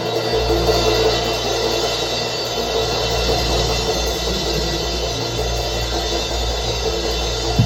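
Live band music recorded as room sound: a sustained held chord with steady bass and cymbal wash, no clear beat. Drum kit hits come in right at the end.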